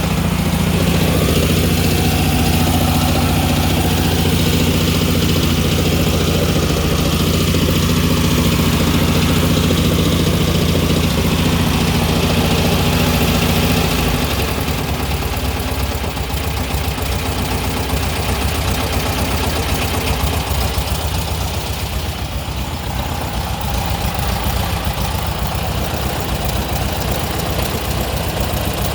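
1959 VW Beetle's air-cooled flat-four engine running steadily. About fourteen seconds in, the sound changes and goes quieter and rougher as a knocking noise sets in, which the owner thinks is possibly a failure of clutch alignment with the gearbox.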